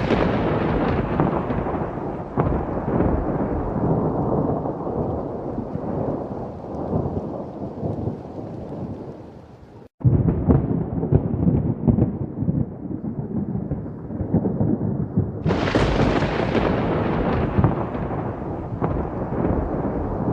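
Thunder: a long rolling rumble that dies away slowly, cut off abruptly just under ten seconds in and picking straight up again, then a second sharp clap about fifteen seconds in that rolls off into rumbling.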